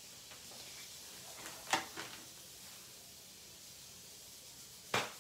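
Quiet room tone with a faint hiss, broken by two short breathy noises: a soft one about two seconds in and a louder one near the end.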